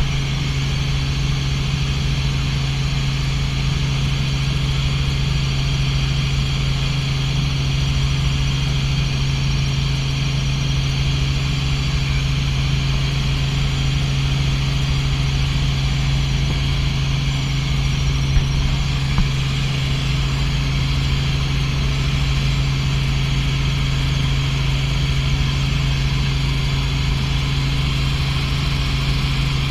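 Robinson R44 helicopter in level cruise heard from inside the cabin: the steady drone of its engine and rotor, with a strong low hum that holds one pitch throughout. Two faint ticks about two-thirds of the way through.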